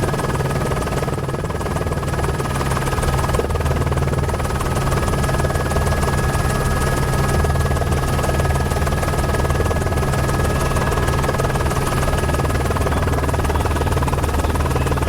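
News helicopter running in flight: a steady, unbroken low drone from the rotor and engine.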